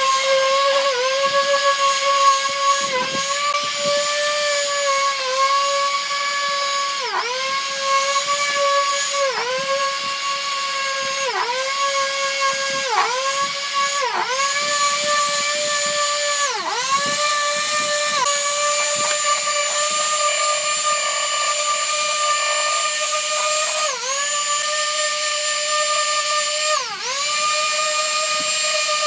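High-speed electric power tool, drill or grinder type, running with a steady whine. It dips briefly in pitch every second or two as it is pressed into the work, then spins back up.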